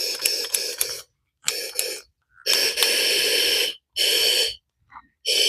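Propane torch gas valve opened and shut five times in a row, each time giving a short hiss of about a second that cuts off sharply: the propane tank is empty, so the torch won't light the smoker.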